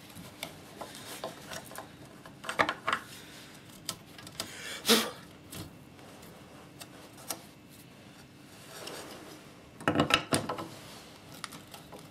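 Metal parts of a Makita belt sander's gearbox clicking, knocking and scraping as they are handled and the gearbox cover is worked back onto the greased housing, with the loudest knock about five seconds in and a cluster of knocks near the end.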